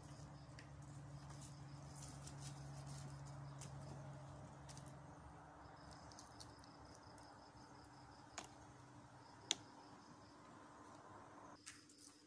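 Faint background: a high insect trill that comes and goes in stretches over a low steady hum, with two sharp taps, the louder about nine and a half seconds in.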